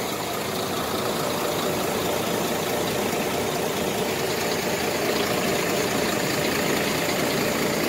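Scania R420 truck's straight-six diesel engine idling steadily, heard from inside the cab.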